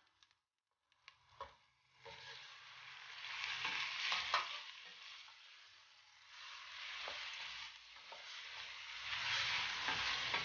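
Beef chunks sizzling in hot oil with onion and garlic in a stainless-steel pot, stirred with a wooden spoon that knocks against the pot now and then. The sizzle starts about two seconds in, after a few spoon taps, and swells and eases as the meat is turned.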